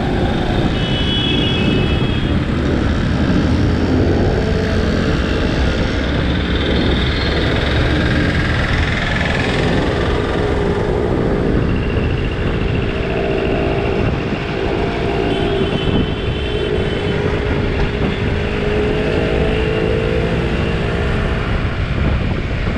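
Motorcycle riding in city traffic: its engine running steadily, with the engines of surrounding scooters, autorickshaws and cars. The engine pitch climbs in the second half as it accelerates. A few short high-pitched tones come and go.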